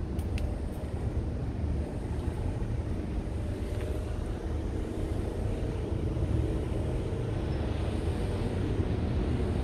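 Steady low rumble with a hiss above it, with a few faint clicks in the first second.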